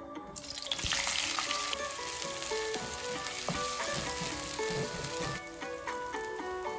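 Chopped onions hitting hot oil in a nonstick karahi: the sizzle flares up suddenly a moment in, then settles to a steady frying sizzle as a wooden spatula stirs them. Light background music plays underneath.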